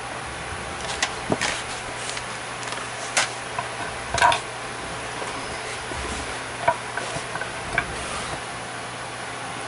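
Scattered light clicks and small metallic taps from a padlock and small tools being handled while the lock is opened up for disassembly, one tap ringing briefly. A steady hiss runs underneath.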